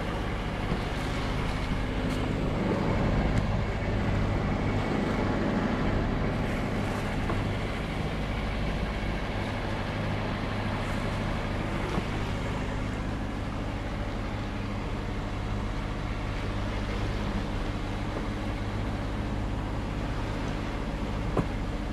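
A sailboat's auxiliary inboard engine running at a steady speed while motor-sailing, with water and wind rushing past the hull.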